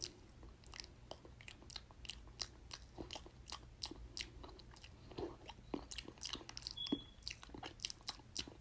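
ASMR mouth sounds: a run of quick, irregular clicks and smacks from the mouth, several a second, with one brief high squeak about seven seconds in.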